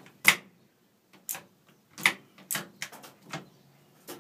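Metal clicks and clunks from the shift mechanism of a 2000 Hyundai Accent manual transmission as it is worked through the gears by hand. About ten uneven clicks come, the loudest near the start.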